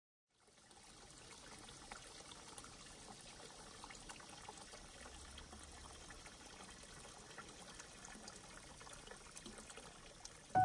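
A thin stream of spring water pouring from a bamboo spout into a shallow stone pool, a faint, steady trickling splash that fades in at the start.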